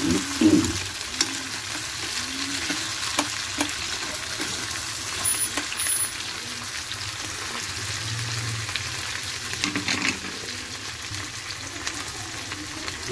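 Chopped tomatoes, onions, garlic and green chillies sizzling in hot oil in a metal pan, with a metal spoon clinking against the pan a few times as they are stirred.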